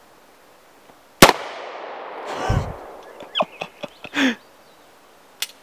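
A single 9mm Glock pistol shot about a second in, its report echoing off the surrounding woods and dying away over about a second. A few fainter short sounds follow.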